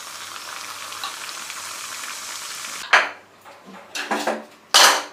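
Paneer candies deep-frying in hot oil in a kadhai, a steady sizzle. About three seconds in the sizzle stops, and a few short, sharp knocks follow, the loudest near the end.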